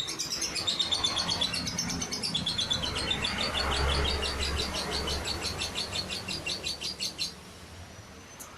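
Lovebird singing a long, rapid chattering trill of high chirps that stops abruptly about seven seconds in.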